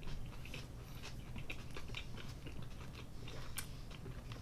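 Close-up mouth sounds of chewing Peking duck wrapped in soft steamed buns with cucumber and scallion: a run of small, irregular wet clicks and smacks.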